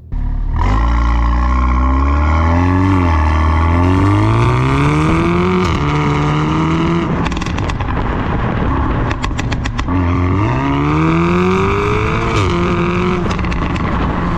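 Volkswagen Golf R's turbocharged 2.0-litre four-cylinder accelerating hard in Race mode, its note climbing through the revs and dropping at each upshift, about three seconds in, near six seconds and near twelve and a half seconds. A run of sharp cracks comes in between, roughly seven to ten seconds in.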